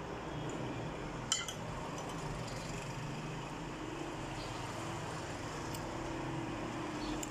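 A metal fork clinking once sharply against a plate about a second in, with a few fainter ticks of the fork later, over a steady low background noise.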